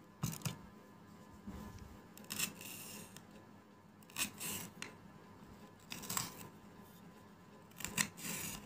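Kitchen knife slicing a green bell pepper on a ceramic plate: short cutting sounds every second or two, some with a brief crunch as the blade goes through the pepper to the plate.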